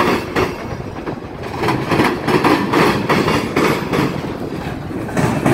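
CSX freight train's gondola cars rolling past, steel wheels clicking over rail joints in a steady repeating rhythm over a continuous rumble.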